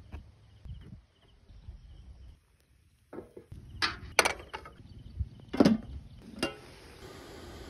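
Metal clanking: a wire steamer rack is set down into a large aluminium pot of water and an aluminium lid is placed on it, giving several sharp clanks with a short ring, the loudest just past halfway.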